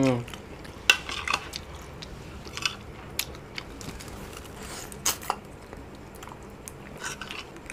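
Close-up eating sounds of soft glutinous rice with durian in coconut-milk sauce: wet mouth smacks and slurps, scattered clicks, and a few light taps of a metal fork on a ceramic plate. A short hummed 'mm' comes at the very start.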